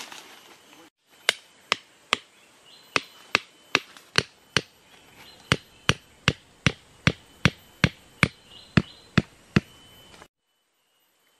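Hammer driving a wooden stake into the ground to anchor a snare: a run of about twenty sharp blows at two to three a second, with a brief pause near the middle. The sound cuts out abruptly about a second before the end.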